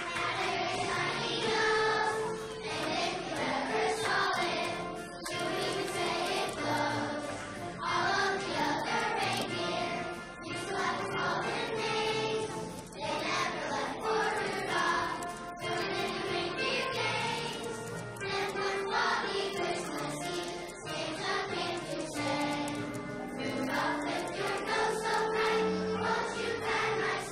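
Children's choir singing a song.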